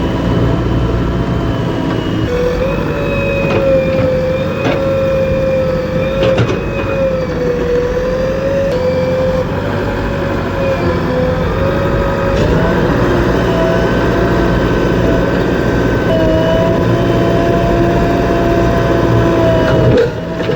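Heavy diesel machinery running steadily, with a whine that wanders up and down in pitch and a few sharp knocks.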